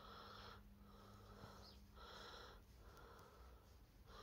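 Near silence with faint, even breaths repeating roughly once a second.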